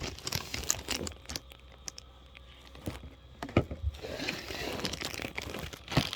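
A taped-up package being handled and opened: crinkling and rustling packaging with scattered sharp clicks. A denser rustle comes about four seconds in.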